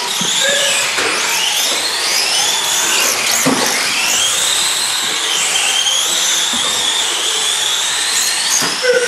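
Several small electric radio-controlled model cars racing together, their motors whining high and overlapping, each pitch rising and falling as the cars accelerate and slow through the corners.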